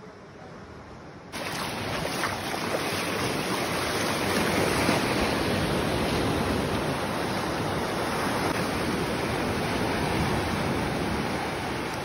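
Sea surf washing onto a sandy beach: a steady rush of breaking waves that cuts in suddenly just over a second in.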